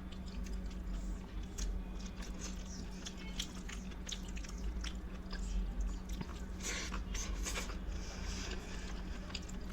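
Close-up eating sounds: wet chewing and biting of rice and curry with many sharp mouth clicks and smacks, and a denser crunching stretch about seven seconds in.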